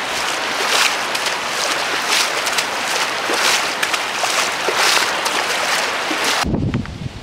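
Steady rain hissing on standing floodwater, swelling and fading every half second or so. Near the end it cuts off abruptly to a quieter, lower rush of water.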